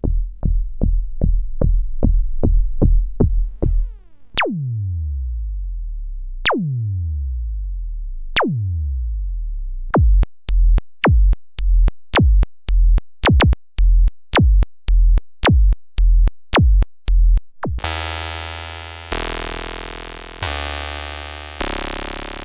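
Mutuca FM analog synthesizer played as drum sounds without a noise source: a quick run of short bass thumps with falling pitch, about three a second, then three slower booming hits that sweep down in pitch. Then comes a steady pattern of about two hits a second, each with a high ping, and near the end a denser, buzzy tone retriggered every second or so.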